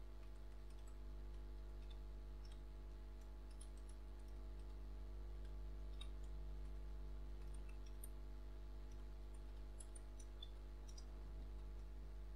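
Faint, scattered clicks of computer keyboard typing over a steady low electrical hum.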